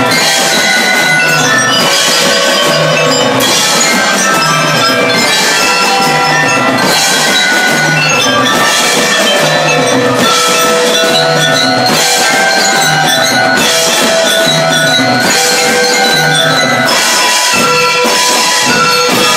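Drum and lyre band playing: bell lyres ring out a melody of sustained metallic notes over a steady marching-drum beat.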